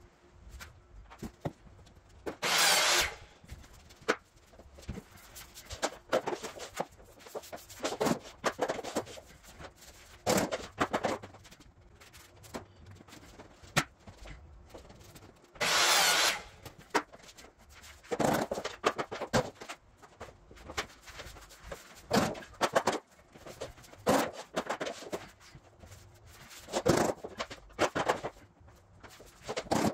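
Vinyl plank flooring being laid: scattered knocks, taps and clicks of planks and hand tools on the floor, with two short, loud scraping sounds, one about three seconds in and one about sixteen seconds in.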